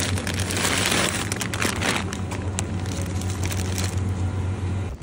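Plastic bag of frozen food crinkling as it is lifted out of a store freezer case, loudest in the first two seconds, over a steady low hum.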